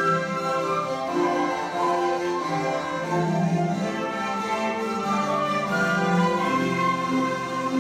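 Elementary-school orchestra of violins and flutes playing a piece together, mostly in long held notes.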